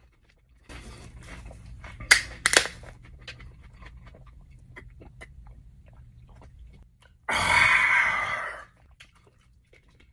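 Close-miked mouth sounds of chewing and drinking from a plastic V8 juice bottle, with two sharp crackles about two seconds in. Then comes a loud, open-mouthed breath out lasting over a second, from the burn of hot peppers.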